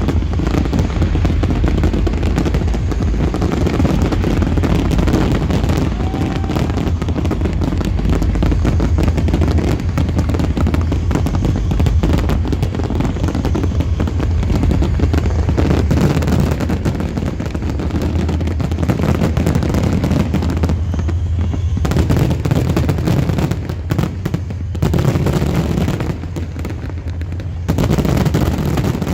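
Fireworks show: a dense, continuous barrage of bangs and crackling, over the steady bass of loud festival music, easing slightly near the end.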